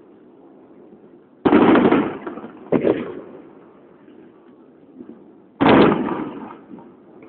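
Aerial firework shells bursting: three loud booms, about a second and a half in, near three seconds and past five and a half seconds, each dying away in a long rumbling tail.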